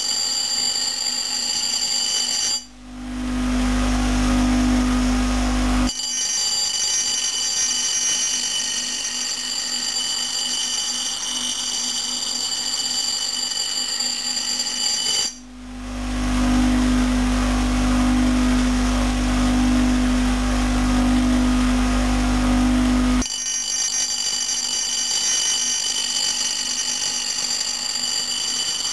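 Bench grinder wheel grinding the steel of an old, rusted and battered axe head, a steady high-pitched grinding whine as the folded-over edge is ground back. Twice, about three seconds in and again around fifteen seconds in, the high whine gives way for a few seconds to a lower steady motor hum.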